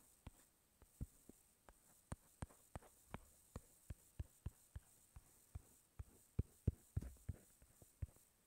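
Faint, irregular taps of a stylus or fingertip on a tablet's touchscreen while painting, about three a second, a little louder near the end.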